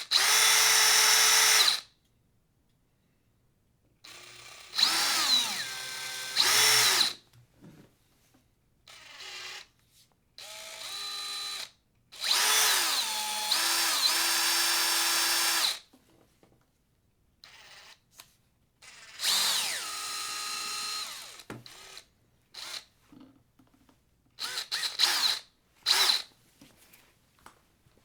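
DeWalt power drill run in a series of separate trigger pulls, the motor whining up to speed and winding down, its pitch rising and falling with the trigger. The runs last from about a second to three and a half seconds, and the last few are short blips.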